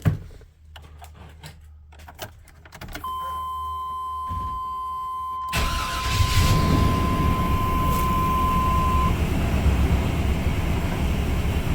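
A 1998 Chevrolet Silverado pickup being started: a steady electronic warning tone from the dash comes on, then about halfway through the engine cranks, catches and keeps running, the warning tone stopping a few seconds after. The newly fitted alternator is now charging.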